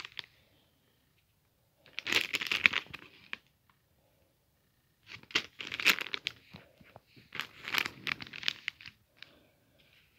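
Packaging being handled, crinkling and tearing in three separate bursts: about two seconds in, around six seconds, and around eight seconds.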